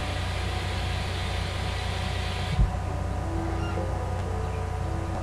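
A steady low hum with faint background music. A single thump comes about two and a half seconds in, and a hiss drops away at the same moment.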